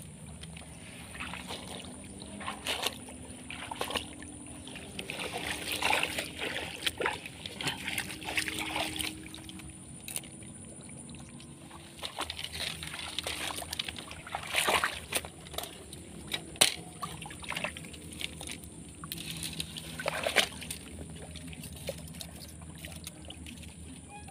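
Shallow swamp water sloshing and splashing in irregular bursts as a tajur set-line rod is planted and the spot cleared, with a few sharper splashes and knocks in the second half.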